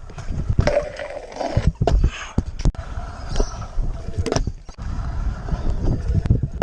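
Stunt scooter riding at a skatepark: its hard wheels roll and rattle over concrete with a steady low rumble, broken by several sharp clacks and knocks from landings and the deck hitting the ground.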